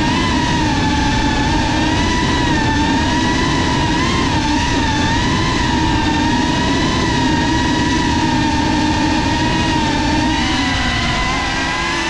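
Motors and propellers of a Cinelog 35 cinewhoop FPV quadcopter whining steadily, the pitch wavering up and down with the throttle and dropping a little near the end.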